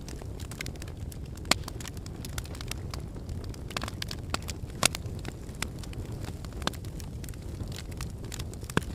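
Crackling fireplace: a steady low rumble of flames with scattered sharp pops and snaps, the loudest about a second and a half in, about five seconds in and near the end.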